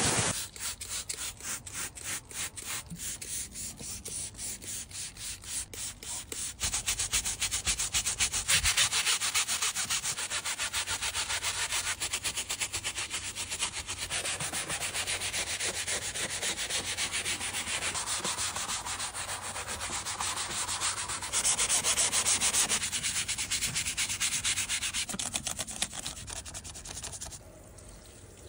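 Stiff-bristled hand brush scrubbing foam-soaked fabric car-seat upholstery, back-and-forth rubbing strokes, about two a second at first, then quicker and denser after a few seconds. Near the end it gives way to a quieter hiss of water spraying onto the seat.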